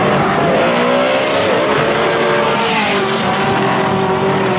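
Two drag-racing cars accelerating hard side by side at full throttle. The engine pitch climbs over the first three seconds, then holds steady as the cars run away down the strip.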